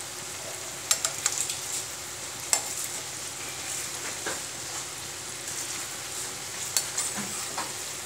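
Gulgule, wheat-flour and jaggery fritters, deep-frying in hot oil in a kadhai: a steady sizzle, broken by a few short sharp clicks.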